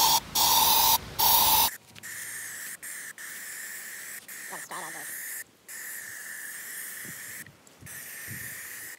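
Aerosol can of Dymark line-marking paint spraying in long hisses along a metal straight edge, with a few short breaks between squirts. The first spurts, in the opening two seconds, are loud; the rest of the spraying is quieter and steady.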